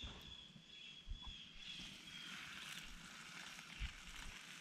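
Water poured out of a frying pan onto the dirt, a faint soft splashing hiss: the water the kielbasa was boiled in being drained off.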